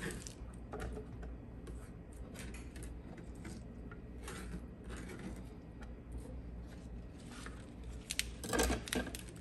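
Swiss chard leaves rustling as they are handled and stacked on a plastic cutting board, with scattered light clicks and taps and a quicker run of louder taps near the end.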